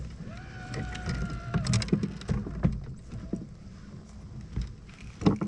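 Scattered knocks and thumps of handling in a small fishing boat, likely a freshly caught crappie being put into the fish box, over a low rumble.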